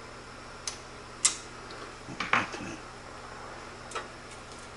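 A few sharp clicks and light clatter of plastic power-cable connectors being handled while fitting a 6-pin to 8-pin graphics card power adapter. There are about four separate knocks, the loudest a little over a second in, over a low steady hum.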